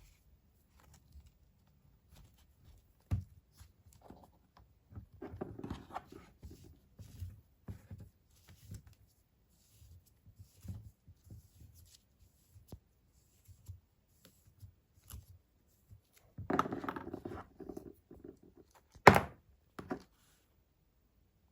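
Toy packaging being handled and opened by hand: scattered clicks and knocks, two spells of rustling and tearing of cardboard and plastic, and a sharp knock near the end.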